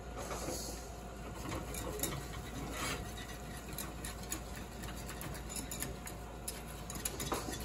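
A flat wire whisk working butter into mashed potatoes in a saucepan: soft stirring and scraping, with many small clicks of the wires against the pan.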